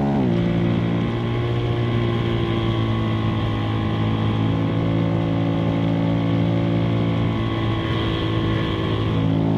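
2025 KTM 390 SMC-R single-cylinder engine and intake, breathing through a Stage 2 DNA air filter, running under way. Its note drops sharply just after the start, holds at steady revs, then rises again near the end.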